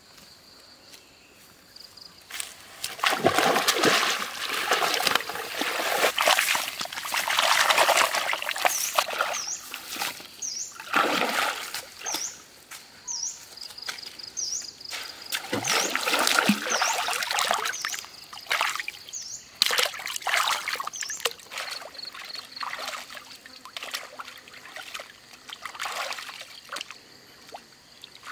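Shallow stream water splashing and sloshing in irregular surges as someone wades and works in it, the loudest stretches coming in the first third.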